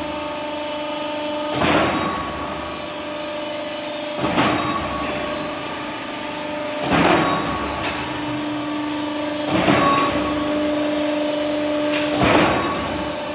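Electric concrete pump running with a steady mechanical hum and a loud surge about every two and a half seconds, five times, each one a stroke of its pumping cycle.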